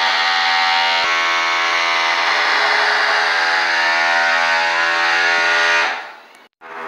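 A loud, steady drone on one low pitch with many overtones. It shifts slightly about a second in and stops abruptly near the end.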